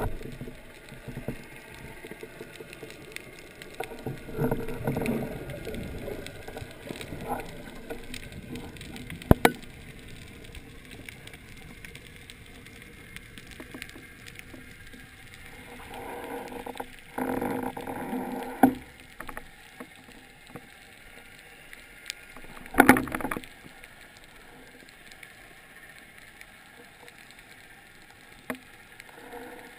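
Underwater sound picked up through a speargun-mounted camera housing: a faint steady water hiss with scattered sharp clicks and knocks, and a few short muffled rushing bursts, the loudest about three-quarters of the way through.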